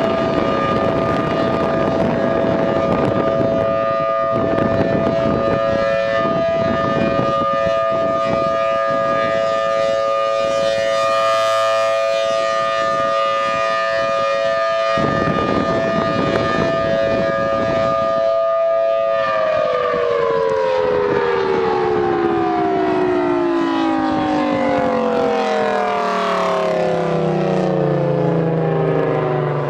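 Thunderbolt 1000T outdoor warning siren sounding a steady chord of two main tones. About two-thirds of the way through it winds down, the whole chord falling steadily in pitch as the siren coasts to a stop at the end of the test.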